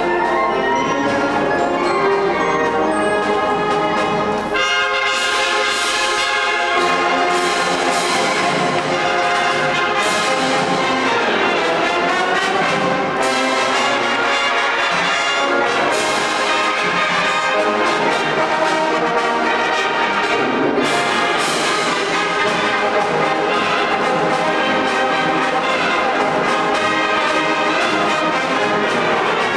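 High school wind band playing a march, brass leading over woodwinds, with sharp percussion hits on the accents. The full band comes in louder and brighter about four and a half seconds in.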